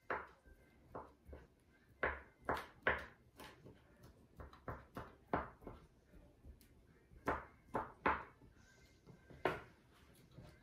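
Chef's knife chopping chicken, celery and red onion on a wooden cutting board: irregular knocks of the blade on the board, a few a second with short pauses.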